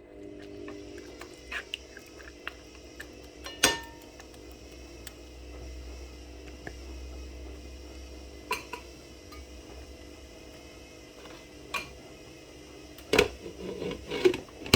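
A metal spoon knocking and scraping against a cooking pot in scattered sharp clinks, the loudest cluster near the end, over a steady low hum.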